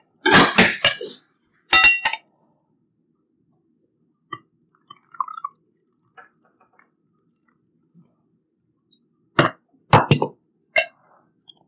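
Spoon clinking against white ceramic bowls while soup is served from a large bowl into a small one: a quick run of clinks in the first two seconds, a few of them ringing, then a few more clinks near the end.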